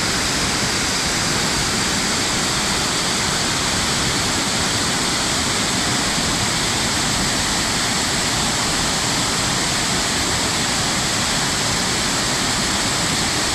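Creek waterfall pouring down rock ledges in two cascades: a steady rush of falling water.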